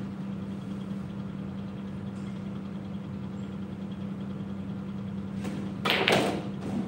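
Pool cue striking the cue ball about five and a half seconds in, followed by a louder clatter of billiard balls knocking together. A steady low hum lies under it throughout.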